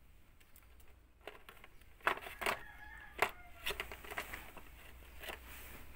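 A kitten playing with a small pillow: a run of light knocks and rustles, loudest from about two seconds in. In the middle comes a faint, drawn-out animal call lasting about a second.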